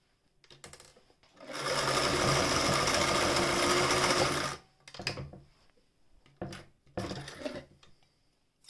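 Singer 467 electric sewing machine running at a steady speed and stitching through fabric for about three seconds, then stopping abruptly. A few short clicks and knocks follow.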